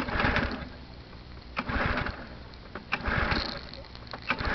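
Recoil pull-cord of a Simoniz 2350 PSI pressure washer's small gas engine yanked four times in a row, about one pull every second and a half, each a sharp click and a short whirr of the engine turning over. The engine does not catch: a cold start after months of storage with fogging oil in the cylinder.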